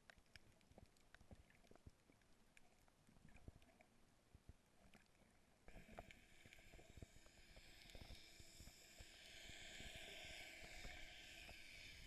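Faint underwater water noise heard through a camera housing: scattered small clicks and crackles, then from about halfway a steadier hiss with low thumps as the water moves around the camera.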